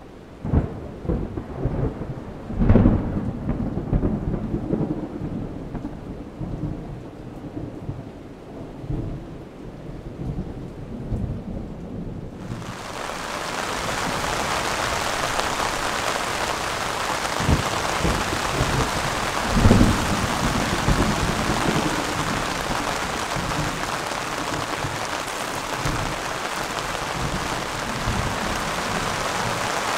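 Thunderstorm: thunder rumbling in loud swells, then moderate rain starting suddenly about twelve seconds in and falling as a steady hiss, with more thunder rolling under it.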